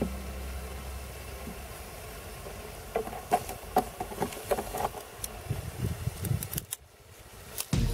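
Tongs clicking and knocking against a plastic tub as objects are lifted out of liquid nitrogen: a scattered run of short sharp clicks from about three seconds in, after a few seconds of faint steady noise.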